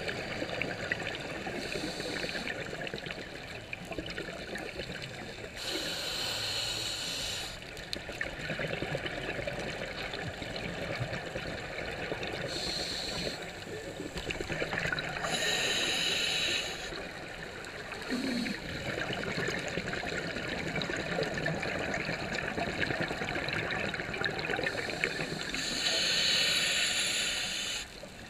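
Scuba divers' exhaled regulator bubbles heard underwater through a camera housing: a steady crackling hiss, broken about five times by louder rushing bursts of bubbles lasting one to two seconds.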